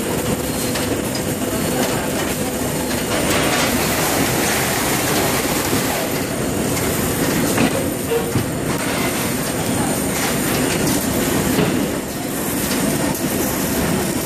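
Automatic shrink-wrap packaging line running: the wrapping machine's conveyors, rollers and sealing mechanism make a steady, dense mechanical rattle.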